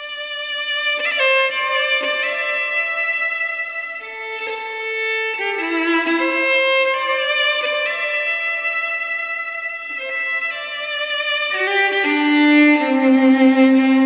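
Solo fiddle playing a slow melody of long bowed notes, with vibrato on the held notes and some double stops. The melody steps down to a low sustained note near the end.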